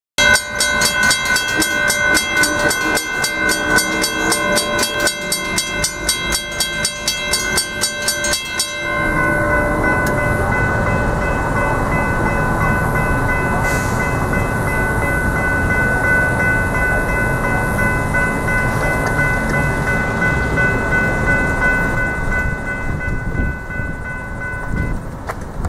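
Grade-crossing warning bells ringing: rapid, evenly repeating strikes for about the first nine seconds, then a steady ringing tone that carries on until near the end. A steady broad noise rises underneath from about nine seconds in.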